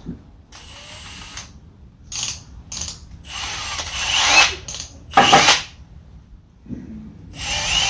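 Hand tools working on nuts and bolts, giving several short bursts of ratcheting and metallic scraping, loudest about four and five seconds in.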